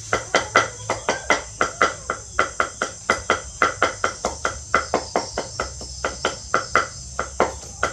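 A large knife chopping rapidly on a thick round wooden chopping block, sharp even strokes about four to five a second.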